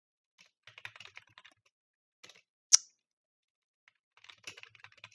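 Typing on a computer keyboard: a quick run of keystrokes about half a second in, a single sharp, louder click near the middle, then another run of keystrokes near the end.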